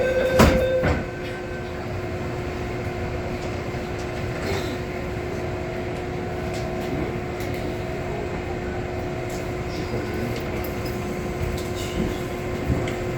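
Door-closing warning tone on a Metro-Cammell M-train ends about a second in, with the doors shutting with a knock about half a second in. The train's GTO chopper traction equipment then gives a steady hum with a faint steady tone as it runs.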